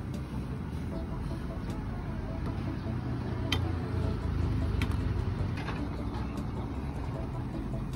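Steady low rumble of street noise, with a few short metallic clinks of a ladle against a wok or pot about halfway through.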